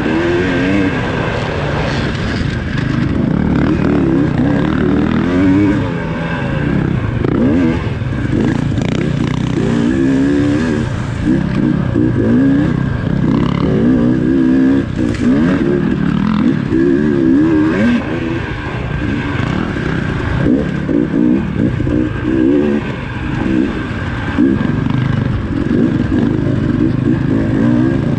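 Dirt bike engine heard from onboard the bike, its revs rising and falling continually as it is ridden hard along a rough trail.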